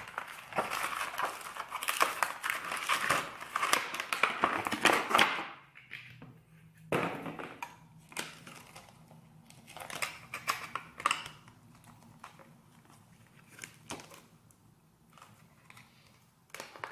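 Crinkling and rustling of sealed packaging being cut and pried open with a kitchen knife, dense for about five and a half seconds, then quieter scattered clicks and rustles.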